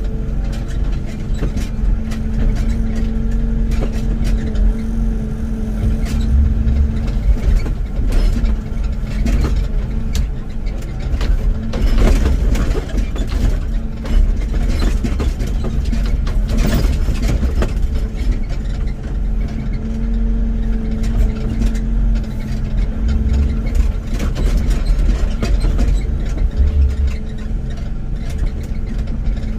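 Excavator diesel engine running steadily, with repeated knocks and scraping from the machine working, busiest around the middle.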